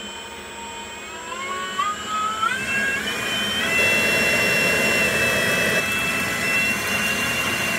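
Leaf blower whining as it speeds up in steps over the first few seconds, then running steadily at high speed, blowing air into a smouldering wood fire to make it flame up.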